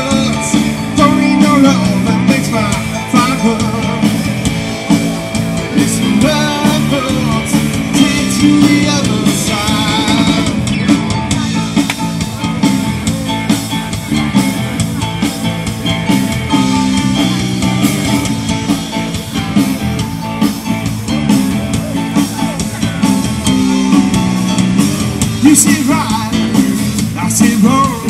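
Rock music with a singer, drum kit and guitar, playing steadily throughout.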